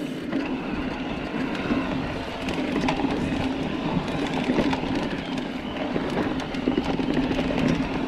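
Trek Rail 9.7 electric mountain bike being ridden on a dirt trail: tyres on dirt and gravel, many small rattling clicks from the bike, and a steady hum throughout.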